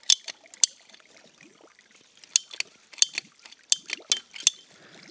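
Ratcheting PVC pipe cutter clicking as its handles are squeezed through a PVC pipe: two sharp clicks at the start, then a quick run of clicks about halfway through.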